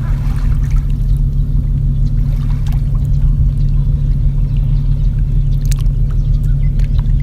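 Water trickling and splashing around a kayak paddling on calm water, with scattered small drips over a steady low rumble.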